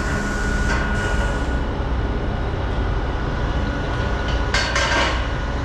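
Large diesel engine running steadily with a low rumble, with a short hiss about four and a half seconds in.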